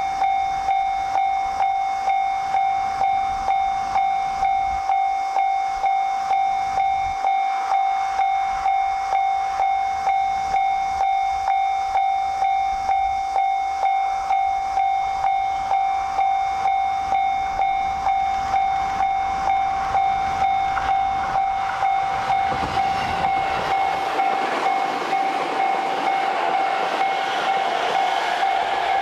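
A level-crossing warning bell ringing steadily, a single ringing tone struck about twice a second. In the last several seconds the wheel and running noise of an E653 series electric express train grows as it approaches and passes close by.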